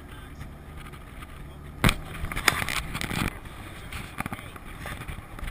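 Jeep riding along with a steady low rumble. About two seconds in there is a sharp knock, followed by a second or so of rattling and clatter.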